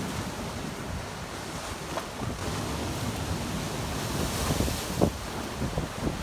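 Ocean surf breaking and washing up the shore, with wind rumbling and buffeting on the microphone; the hiss of the wash swells about four seconds in.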